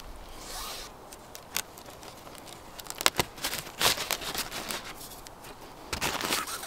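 A plastic tarp crinkling and rustling as cord is pulled and wound around a wooden pole to lash it down, with scattered brief scrapes and ticks, busier from about three seconds in.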